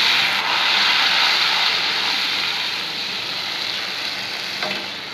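Ginger-garlic and green chili paste sizzling in hot oil with fried onions in a kadai as it is stirred, the sizzle slowly dying down.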